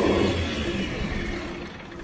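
Motorboat engine running with a steady low hum and water and wind noise, fading away over the two seconds.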